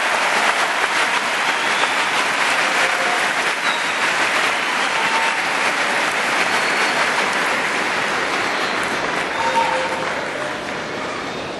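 Arena crowd applauding at the end of a table tennis game, dying down near the end.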